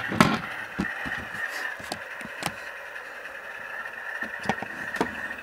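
Tsunami sound decoder in an HO-scale Alco RS3 model playing the diesel engine sound at idle through the model's small speaker, a steady thin hum. Several light knocks break in, the loudest just after the start.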